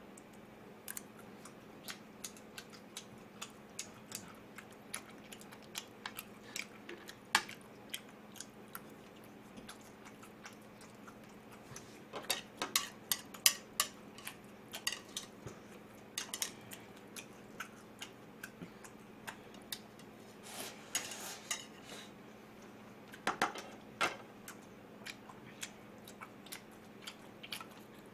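Metal chopsticks clicking and clattering against a ceramic plate and dishes: scattered light taps, with a few busier flurries of clicks.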